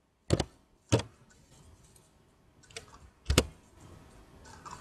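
Computer keyboard keystrokes: two sharp key clicks about half a second apart, then a louder, heavier keystroke a little over three seconds in.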